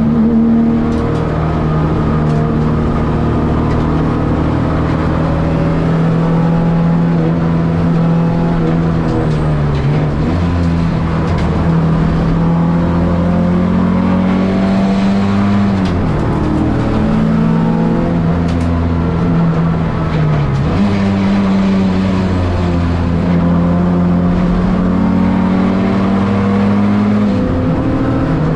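Ford Escort XR3's CVH four-cylinder engine running hard at racing revs, heard from inside the stripped cabin. The engine note dips sharply and climbs back four times through the stretch, at gear changes.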